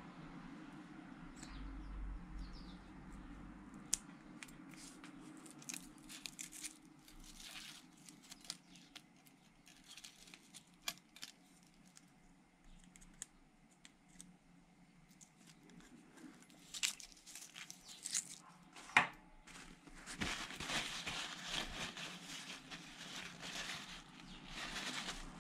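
Scattered small metal clicks and taps as a spark plug and the steel blades of a feeler gauge are handled, then paper towel crinkling near the end as the plug is wiped.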